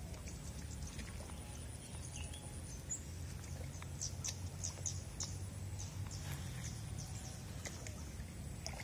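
A bird chirping a quick run of short, high notes, about three a second, through the middle, over a steady low rumble.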